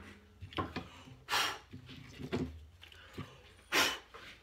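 Quiet handling noise as the trimmer-head parts and trimmer line are picked up: small clicks and rustles, with a few short, breathy puffs, the loudest near the end.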